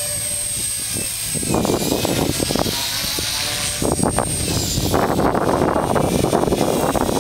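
Gaui Hurricane 200 radio-controlled electric helicopter in flight: a high-pitched motor and rotor whine that fades and comes back as it manoeuvres, with a rushing noise that swells about a second and a half in and again near the end.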